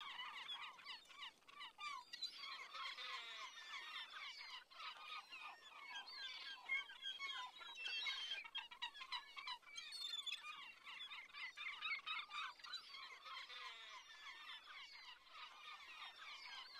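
Many gulls calling at once: short, overlapping calls forming a dense, continuous chorus.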